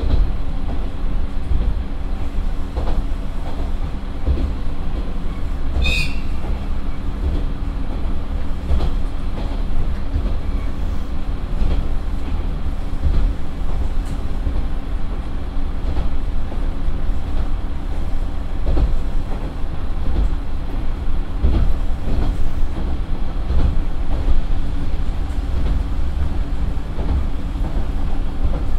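Cabin running sound of a NaGaRa 3 diesel railcar at about 58 km/h: its Nissan Diesel PF6HT03 engine drones steadily while the wheels knock over the joints of short-length rail. A brief high-pitched chirp sounds about six seconds in.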